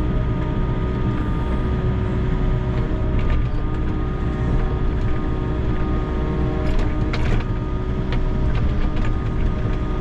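Volvo EC60E mini excavator's diesel engine running steadily with a steady whine, as the bucket works a pile of rocky clods. A few sharp knocks of bucket and stone sound over it, two close together about seven seconds in.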